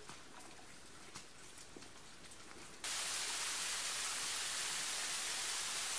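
Faint outdoor background with a few light clicks, then, about three seconds in, an abrupt cut to the steady, even hiss of water falling down a rock face in a small cascade.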